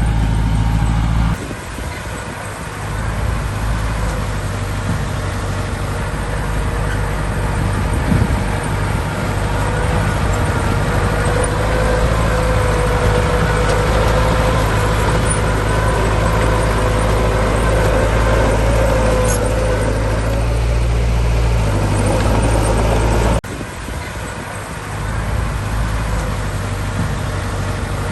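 Heavy diesel earthmoving machinery running: a steady low engine drone with a whine that rises and holds through the middle. The sound drops abruptly twice, about a second in and again near the end.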